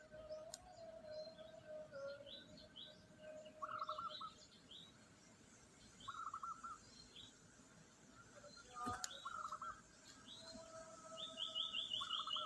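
Several birds calling together: one repeats a short warbled phrase about every two and a half seconds, others give high chirps, and a fast high trill comes near the end. A single sharp click sounds about nine seconds in.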